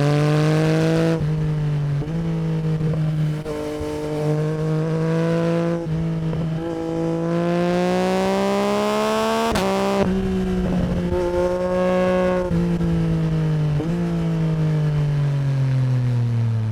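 Yamaha MT-09 SP's crossplane three-cylinder engine through an Akrapovic Racing Line exhaust, pulling hard up through several gears. The pitch climbs and then drops at each shift, with one long climb in the middle. Near the end the throttle eases off and the pitch slides down.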